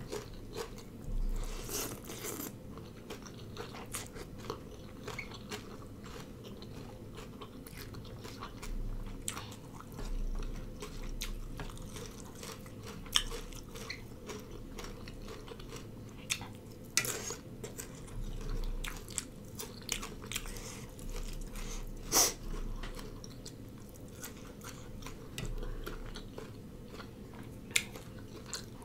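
Close-up mouth sounds of someone eating spicy rice noodle salad with raw vegetables: steady chewing broken by short, sharp crunchy bites, several of them much louder than the rest.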